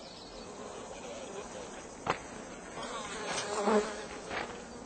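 Flies buzzing around a corpse, the buzz wavering in pitch and swelling a little near the end, with one sharp click about two seconds in.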